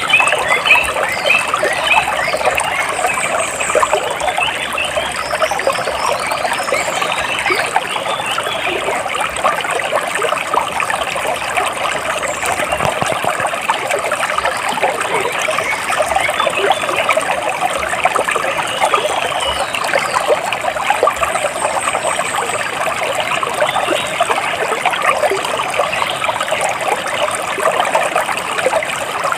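Water splashing and trickling steadily, with faint high bird chirps now and then, most of them in the first several seconds.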